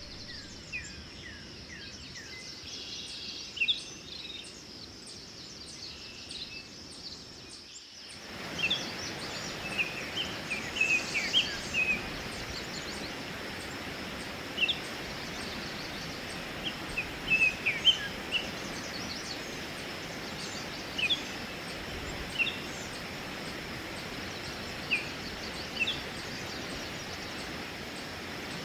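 Wild birds calling in short, scattered chirps over a steady outdoor hiss. The hiss jumps louder about eight seconds in.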